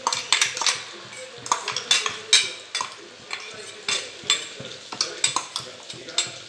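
Metal spoon scraping and knocking against the inside of a stainless-steel mixer-grinder jar, a quick irregular run of clinks and scrapes, as a ground paste is scooped out into a pan.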